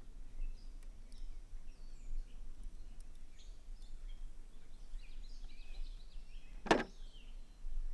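Faint bird chirps over a low steady hum, with one sharp knock near the end.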